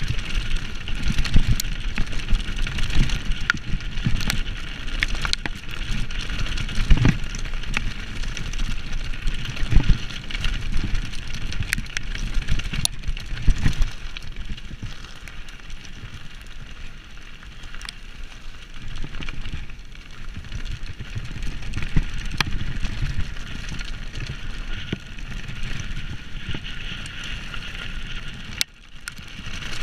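Mountain bike riding fast down a rough dirt and stony trail: the tyres rumble and crunch over the ground while the frame and chain rattle. Sharp knocks come over bumps, the loudest in the first half.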